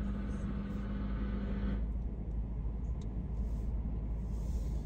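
Car interior noise while driving: a steady low rumble of engine and road, with a steady hum and hiss that stop about two seconds in.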